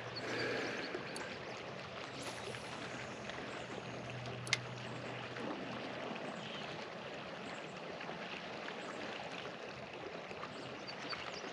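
Steady rushing of flowing creek water, with a single sharp click about four and a half seconds in.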